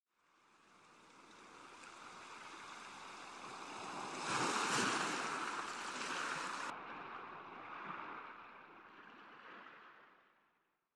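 Ocean surf washing on a beach, fading in from silence, swelling about four seconds in, turning duller about two-thirds through, then fading out.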